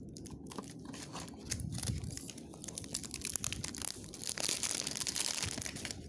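A cardboard puzzle-cube box with a clear plastic window being handled and opened by hand. It rustles, crinkles and scrapes, with scattered small clicks, and is busiest about four to five and a half seconds in.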